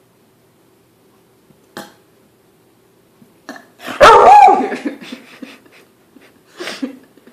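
A loud human burp about four seconds in, lasting most of a second, with short dog barks, one a couple of seconds before it and another near the end.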